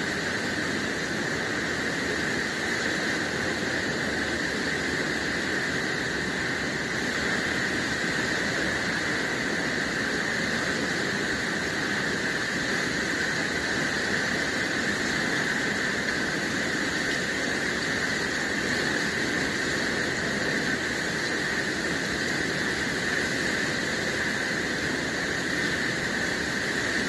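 Steady, even rushing noise of an indoor spa pool hall, with a strong hiss in the upper middle, unchanging throughout.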